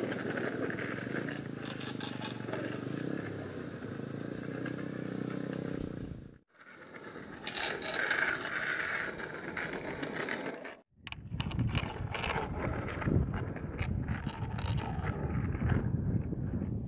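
Skateboard wheels rolling and scraping along a road, broken twice by brief silences. After the second break there is a lower, rougher rumble.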